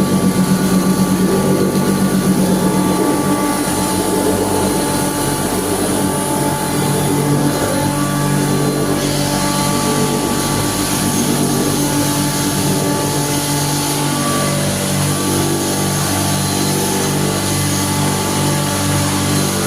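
Motorised coriander grinder running steadily under load, a continuous machine hum with a steady whine.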